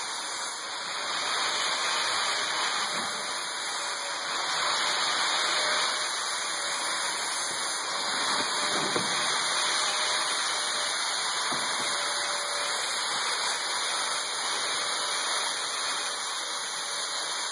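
Steady, loud rushing noise of a machine shop, with a faint hum partway through and a couple of soft knocks.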